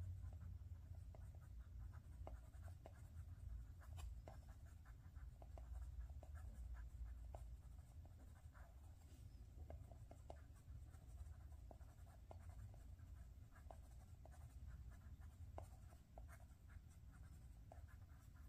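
Faint pencil strokes scratching on drawing paper, many short quick strokes as an area is hatched and shaded, over a low steady hum.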